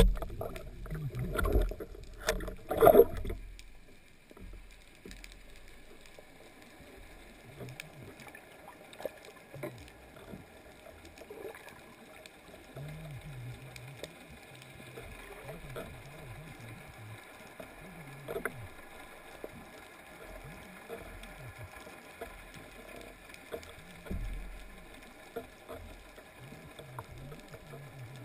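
Water sloshing and gurgling around an underwater camera held just below the surface, with a few loud knocks in the first three seconds.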